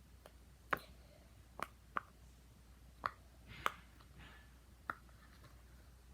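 Silicone pop-it fidget toy bubbles being pressed, giving about six short, sharp pops at irregular intervals.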